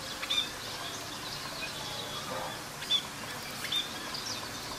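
Budgerigars giving a few scattered, short, high chirps over a steady background hiss.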